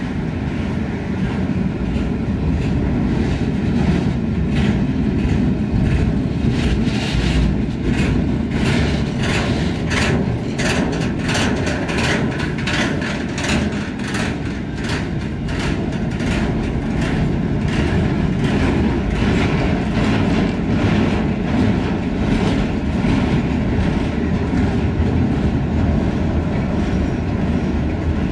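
Open freight wagons rolling past: a steady rumble of steel wheels on rail, with rhythmic clicking as the wheels cross rail joints, the clicks thickest in the middle.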